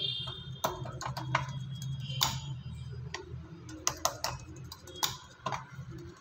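Spoon pressing and patting crumbly kalakand mixture flat on a greased steel plate: irregular clicks and taps of the spoon against the steel, a few a second, over a low steady hum.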